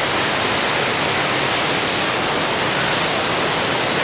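Loud steady rush of fast-flowing water, an even hiss-and-roar without breaks, as from a nearby waterfall or rapids.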